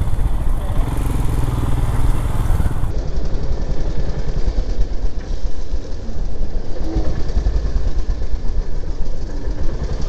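Royal Enfield motorcycle engine running as the bike is ridden through town traffic; the sound changes abruptly about three seconds in.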